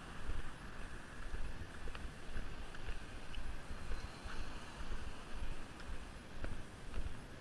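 Wind rumbling on the microphone and road traffic passing, the noise swelling and fading in a steady rhythm about twice a second, with a few faint clicks and rattles.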